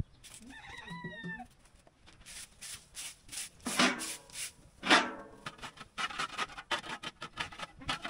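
Scraping and sweeping strokes on a dirt yard strewn with straw, a broom and a hand scraper working the ground in quick irregular strokes, the two loudest near the middle. A short high call comes about a second in.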